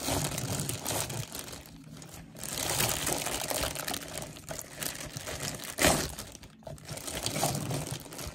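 A packaging bag crinkling and rustling as it is pulled and tugged at by hand in an attempt to rip it open, with one sharp, loud crack about six seconds in.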